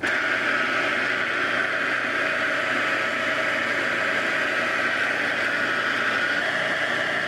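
Food processor motor switched on and running steadily at full speed, pureeing cooked figs.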